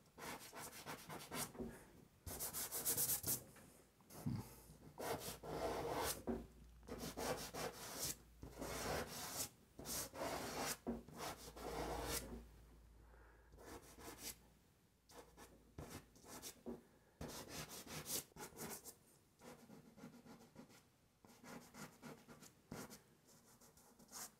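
Dry pastel sticks scratching and rubbing across paper in short, irregular strokes, busier in the first half and softer later.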